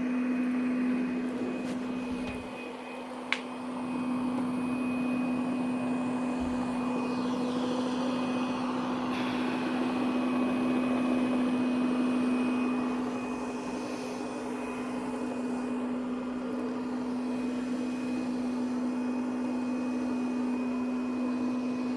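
MOOSOO robot vacuum cleaner running in edge-cleaning mode: a steady motor hum with a thin high whine over a rushing suction noise, growing slightly louder and softer as it goes. There is one sharp click about three seconds in.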